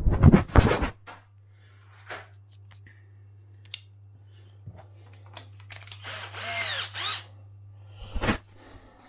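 Power drill-driver with a star bit driving the washing machine motor's mounting screws in short bursts: a loud spell in the first second, a whirr that rises and falls in pitch about six seconds in, and a brief burst just after eight seconds, with small clicks and knocks between.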